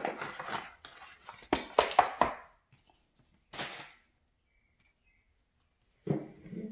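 Unboxing handling of a smartphone and its cardboard box: a few sharp clicks and knocks as the phone and box tray are handled, then a short rustle of packaging about three and a half seconds in.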